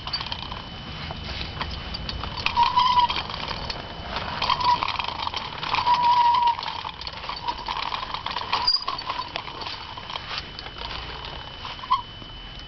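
Child's bicycle with training wheels rolling over a concrete sidewalk: a continual rattle and clatter from the wheels, with several short, high squeaks.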